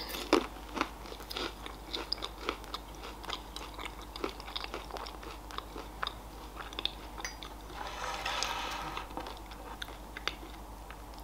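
Close-up chewing of a Raffaello coconut-almond candy: its crisp wafer shell and almond crunch in many short, sharp clicks, the loudest at the very start.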